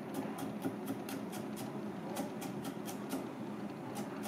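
Misono chef's knife slicing garlic cloves on a plastic cutting board: quick, light taps of the blade on the board, about four a second, in short runs with brief pauses. A steady low hum runs underneath.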